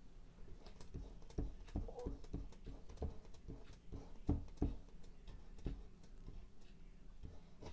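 Paintbrush working oil paint onto a stretched canvas: a run of irregular soft knocks and taps, a few of them louder near the middle.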